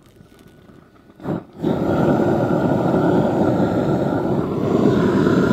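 Gas roofing torch firing, a loud steady rush of flame that comes on about a second and a half in after a brief burst. The flame is heating the underside of bitumen roofing membrane to melt it for bonding.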